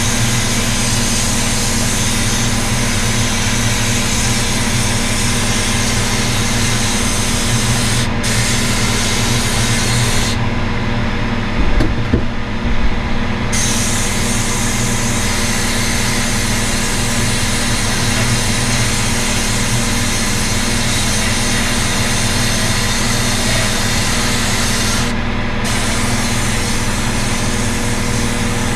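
Spray painting: a steady hiss of paint spraying over a low machine hum. The hiss cuts out a few times, once for about three seconds about a third of the way in, while the hum carries on.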